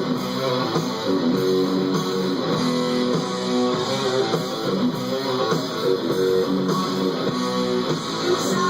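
Guitar music played through speakers driven by a Phoenix Gold Outlaw car audio amplifier on a sound test, with the amp's electrolytic capacitors newly replaced. It plays cleanly and steadily, a sign that the rebuilt amp is working.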